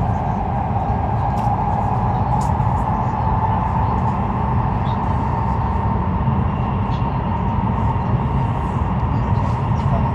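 Steady cabin noise of a CRH1A high-speed train running in a tunnel: a constant low rumble and rush with a steady hum, heard from inside the passenger car.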